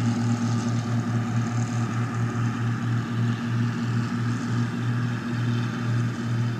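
Engine of a paddy machine running steadily, with a low drone that throbs at an even beat of about two pulses a second.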